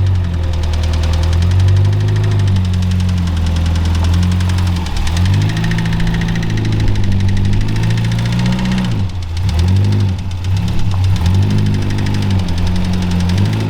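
Ford XB Falcon engine running under way, its note rising and falling in steps with a brief dip about nine seconds in.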